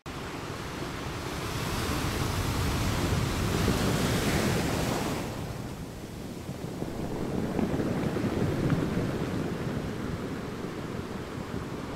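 Small waves washing onto a sandy shore, mixed with wind buffeting the microphone. The wash swells about four seconds in and again near nine seconds.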